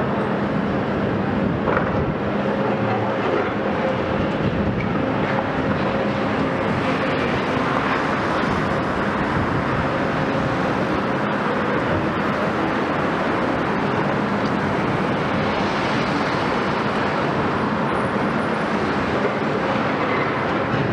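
Volvo EC 700 B long-reach demolition excavator working, its Volvo D16 diesel engine running steadily under load while the high-reach arm works at the concrete.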